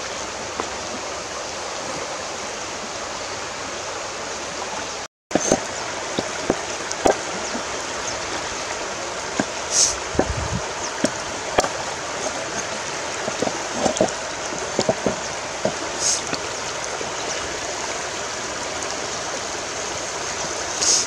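Steady rush of a shallow, rocky river. After a brief dropout about five seconds in, a cleaver knocks and scrapes at a fish on a wooden cutting board in short scattered strokes.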